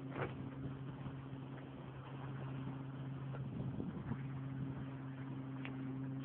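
Boat engine running at a steady speed, an even low hum, over the wash of water along the hull; a short knock comes just after the start.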